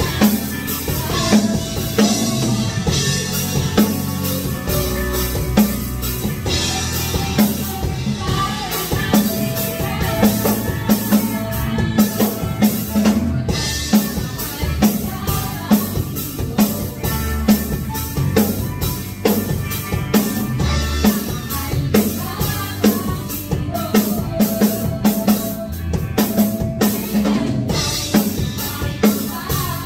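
Live band playing a slow worship song: a drum kit keeps a steady beat under keyboard, electric guitar and bass, with women singing together into microphones.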